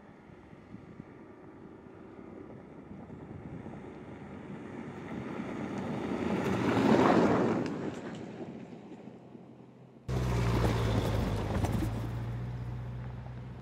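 Land Rover Discovery Sport driving past on a loose dirt and gravel track: tyre and engine noise grow as it approaches, peak about seven seconds in, then fade. Then a sudden switch to a much closer pass, louder, with a steady low engine hum and stones under the tyres, slowly fading.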